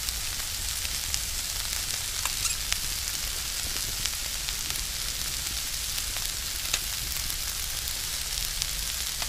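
Sliced potatoes, onions and mushrooms frying in garlic butter in a pan over a campfire: a steady sizzle with scattered small pops.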